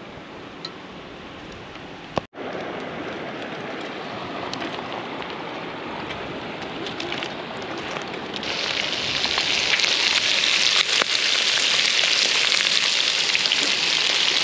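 Brook trout frying in butter in a pan: a steady sizzle that turns louder and brighter about eight seconds in, with small crackles through it.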